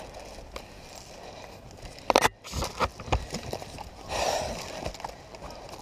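Rustling and scraping of a person moving through dry pine needles and brush, with a cluster of sharp clicks or knocks about two seconds in and a louder rustle about four seconds in.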